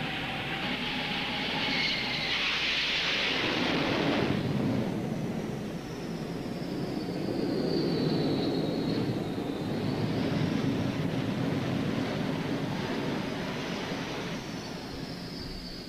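F/A-18 Hornet's twin General Electric F404 turbofans running, a continuous rushing jet noise with a thin high whine that drifts down, rises, then falls again. The noise changes abruptly about four and a half seconds in.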